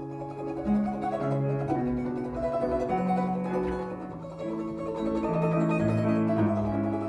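A plucked string instrument playing a Russian folk-song arrangement with accompaniment, a melody line over steadily moving bass notes.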